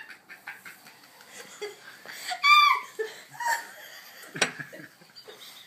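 A person laughing in short bursts, with a high-pitched squeal about halfway through and a sharp knock near the end.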